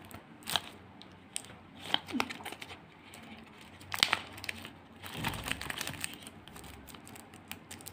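Cellophane-wrapped cardboard pack of playing cards being handled and worked at to get it open: crinkling of the plastic wrapper with a few sharp clicks and taps, the loudest about half a second and four seconds in, and a dull rumble of handling around five seconds in.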